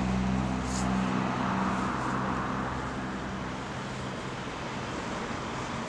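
Spirit box sweeping through radio frequencies, giving a steady rush of choppy static. A low hum of a few steady tones fades away over the first few seconds.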